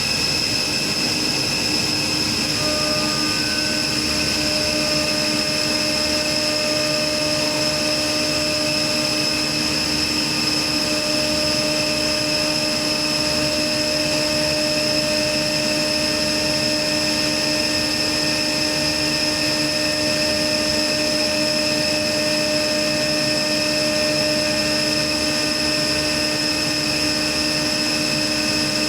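A 500-ton chiller running steadily: an even machine whine made of several high steady tones over a rushing noise, with one more tone joining about three seconds in.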